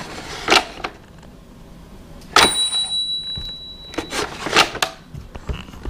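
Toy electronic cash register being tested after repair: plastic clicks from its keys and cash drawer, and about two and a half seconds in, a click followed by one steady electronic beep lasting about a second and a half. The beep and clicks show that the register is working again.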